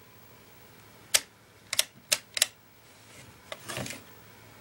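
Sharp plastic clicks from handling a dead Hitachi Hi8 camcorder, about six in quick succession, followed by a soft rustle near the end.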